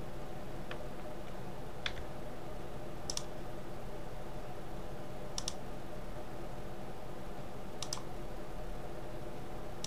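Computer mouse and keyboard clicks: a few short, sharp clicks a second or two apart, several in quick pairs, over a steady low background hum.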